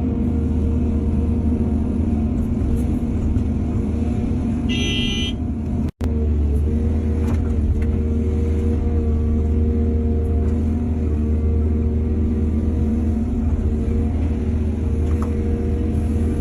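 Heavy diesel engine of earthmoving machinery running steadily under load. About four and a half seconds in there is a brief high-pitched tone lasting about a second, and near six seconds the sound cuts out for an instant.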